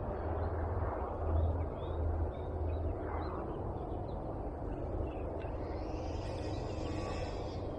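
Outdoor background of faint bird chirps over a steady low rumble. A rushing hiss swells from about five and a half seconds in and stops just before the end.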